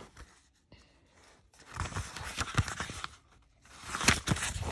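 Paper pages of a paperback comic book being handled and turned: two bouts of rustling, about one and a half seconds in and again near the end.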